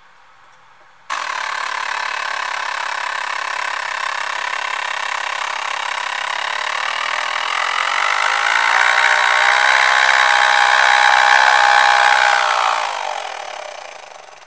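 Miniature paper pneumatic piston motor running on compressed air: a buzz over a hiss that starts suddenly, climbs in pitch as the motor speeds up partway through, then drops in pitch and fades as it slows near the end.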